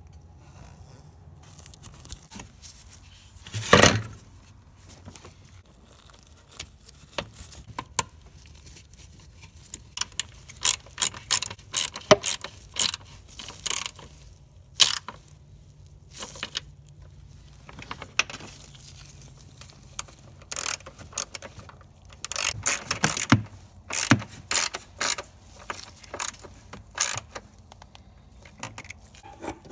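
Ratchet wrench on a socket extension clicking in short runs as a bolt is worked, mixed with knocks and rattles of tools and plastic parts being handled; one louder knock comes about four seconds in.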